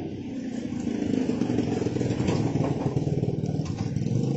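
A small motorcycle engine running close by, growing louder about a second in. A few light clicks on top, from foam takeaway boxes being handled.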